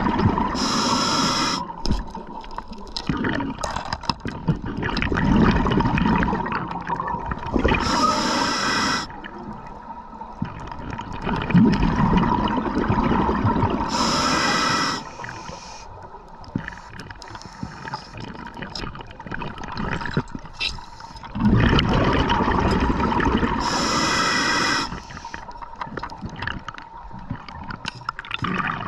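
Scuba diver breathing through a regulator underwater: about four breaths, each a short hiss on the inhale and a longer burst of bubbling on the exhale.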